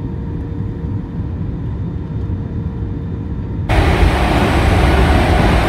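Steady low rumble of an Airbus A320-family airliner's cabin in flight, with a faint steady hum. About three and a half seconds in it cuts abruptly to the louder running noise inside a train car.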